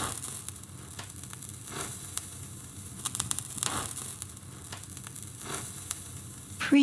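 Vinyl record surface noise: a steady hiss and low hum, with scattered clicks and pops. Near the end a voice says "preview" over it.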